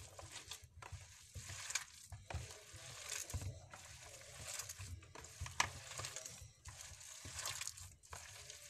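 Hands squeezing and turning raw minced meat mixed with onion, blended tomato and spices in a bowl, in irregular wet strokes.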